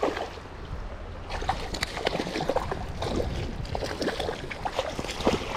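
Hooked rainbow trout splashing and thrashing at the surface of a flowing river: a run of irregular splashes over the steady rush of the current.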